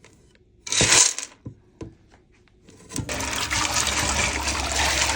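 Kitchen tap turned on about three seconds in, with water running steadily into the sink. Before it comes a brief loud rustle or clatter and a few small clicks.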